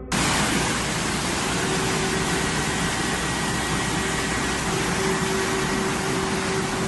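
Muddy flash-flood water surging through a street as a steady, dense rushing noise.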